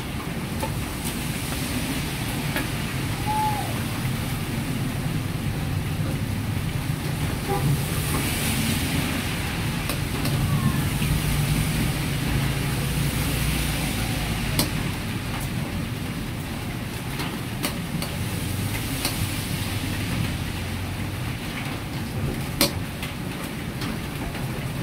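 Gas wok burner running with a steady low roar under a carbon-steel wok, a sizzling hiss swelling for several seconds partway through, and a few sharp metal clicks of a ladle against the wok in the second half.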